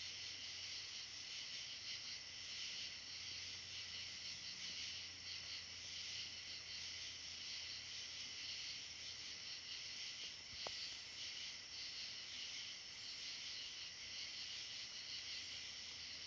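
Dense, steady high-pitched chorus of night insects, with one faint click about ten and a half seconds in.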